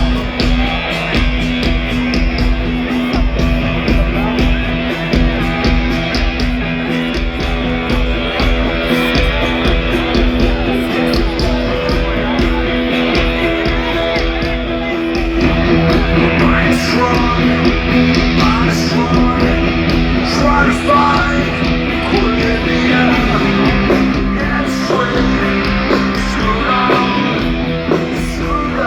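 Rock band playing live through a stadium PA, with electric guitars, bass and drums. A fuller, louder section with a stronger bass line comes in about halfway through.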